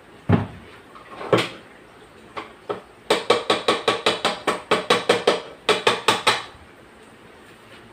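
A utensil knocked repeatedly against the stainless steel bowl of a stand mixer, ringing with each strike, to clear buttercream icing from it: a few separate knocks, then a quick run of about four knocks a second that stops shortly after six seconds.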